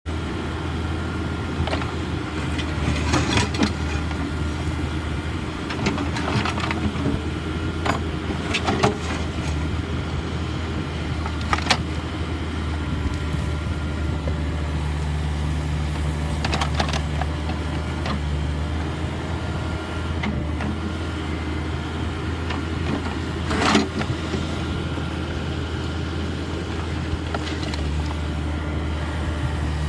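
Excavator diesel engine running steadily under load, with scattered sharp clanks and knocks from the machine working.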